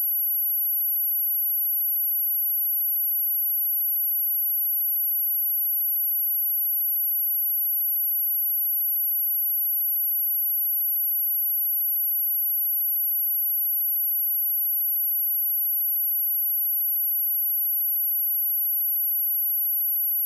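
A steady, unbroken high-pitched pure test tone: an 11713 Hz sine wave held at constant pitch and level, used as a speaker test and to drive water and dust out of a phone speaker.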